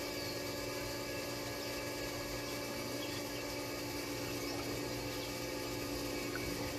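Above-ground pool's filter pump running with a steady hum.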